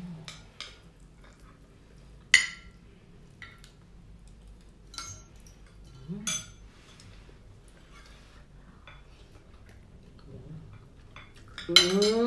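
Cutlery clinking on dishes as people eat, a few scattered sharp clinks, the sharpest about two seconds in. Near the end, a loud drawn-out vocal sound rising in pitch.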